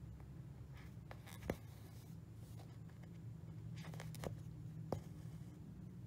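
Cross-stitch needle and floss being pulled through aida fabric: soft scratchy pulls with a few light ticks, over a low steady hum.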